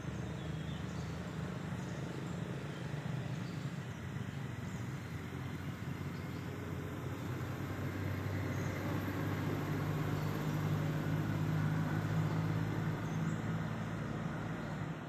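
A steady low engine hum that grows louder about halfway through and eases near the end.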